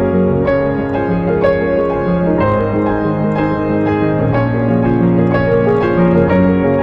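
Background music: piano playing sustained chords with a steady pulse of notes.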